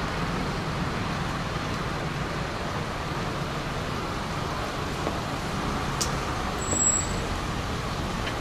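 Steady outdoor background rumble and hiss, like distant traffic, with a sharp click about six seconds in and a brief high beep just after.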